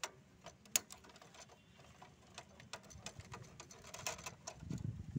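Light, scattered clicks and knocks of the plastic output paper guide tray and housing of an HP ink tank 5820 printer being handled by hand, with one sharper click about three-quarters of a second in and a run of clicks around four seconds in.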